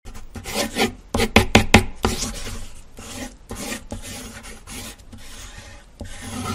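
Pencil sketching sound effect: a run of scratching strokes on paper, with a quick cluster of short sharp strokes in the first couple of seconds and longer rasping strokes after.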